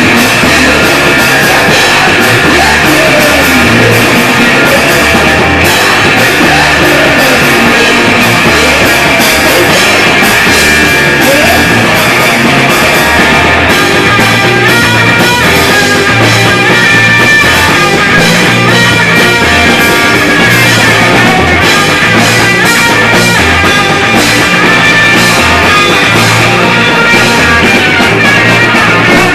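Loud live rock band playing: electric guitar through Marshall amplifiers over a drum kit.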